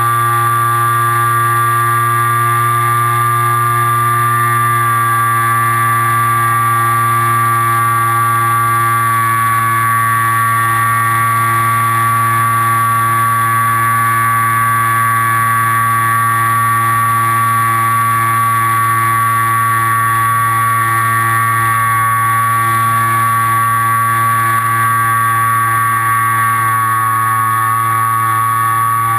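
Electric motor and propeller of an FPV aircraft running at a steady throttle, a constant whine made of several tones over a low drone, with a slight dip in pitch about two-thirds of the way through.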